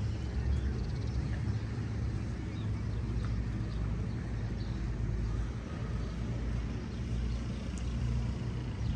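Outdoor street ambience: a steady low rumble with faint short chirps and ticks above it.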